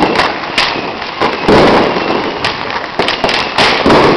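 Firecrackers going off in rapid, irregular strings of sharp pops, with a few louder bangs about one and a half seconds in and near the end.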